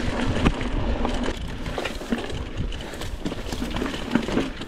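Mountain bike rolling over a stony dirt trail: tyres crunching on loose rock and the bike rattling, with irregular knocks and a low rumble of wind on the microphone.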